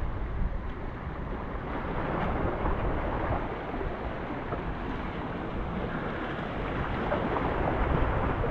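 Wind buffeting the microphone, a steady rumbling rush, over sea waves washing against breakwater rocks.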